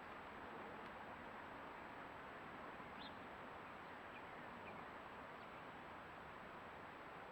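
Faint, steady outdoor background hiss with a few faint, short, high bird chirps, the clearest about three seconds in.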